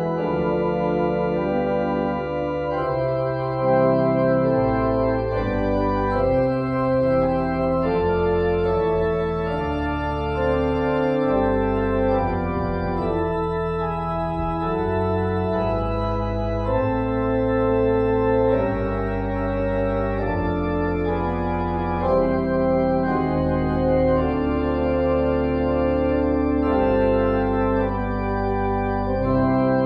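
Organ music: slow, held chords changing every second or two over long, deep bass notes.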